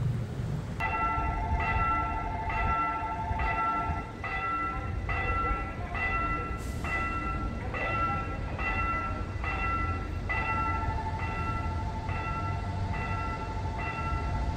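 Railway level-crossing warning bell ringing over and over, about once a second, starting about a second in, over a low rumble.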